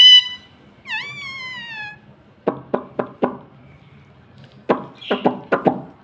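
Indian ringneck parrot giving two drawn-out whistled calls that drop in pitch, one at the start and one about a second in. Then come two quick runs of short clipped sounds, four a little after two seconds in and about six near five seconds in.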